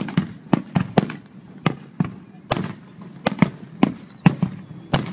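Aerial fireworks shells bursting in an irregular volley of sharp bangs, about three a second, each trailing off briefly.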